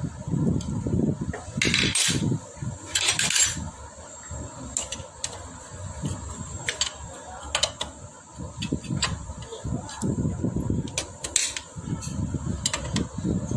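Metal tools and engine parts clicking and clinking while a Honda Shine motorcycle engine's cylinder head is fitted. Scattered sharp clicks, with two short hissing bursts about two and three seconds in, over an irregular low rumble.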